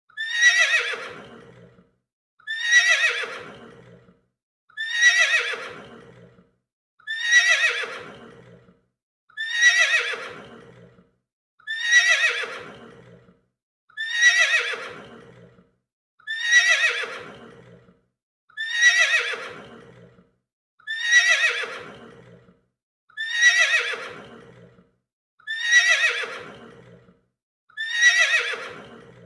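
A horse neighing: the same whinny repeated at an even pace, about every two seconds, each call starting loud and high and sliding down in pitch as it fades.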